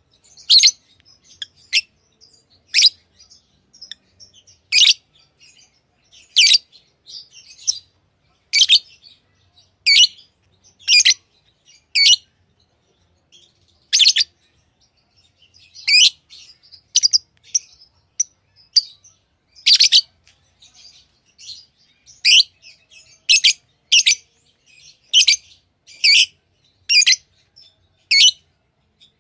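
Pet lovebirds chirping: short, sharp, high-pitched calls repeated about once a second, with quieter chatter between them.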